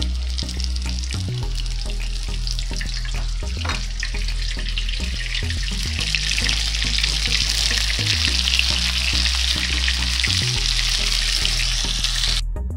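Potato patties sizzling in hot oil in a frying pan after water is poured in, a steady hiss that grows louder about halfway through.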